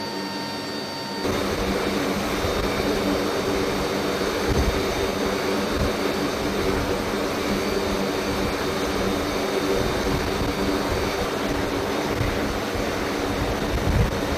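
The MC-130J's four turboprop engines running steadily, heard from inside the cargo hold with a low, even drone. It comes in loud all at once about a second in, with a few dull thumps, the loudest near the end.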